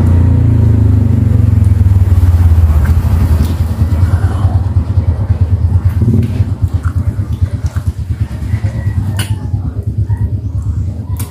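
A motorcycle engine running close by with a low, rapidly pulsing drone. It is loudest in the first few seconds and gradually fades. Sharp clicks come about nine seconds in and near the end.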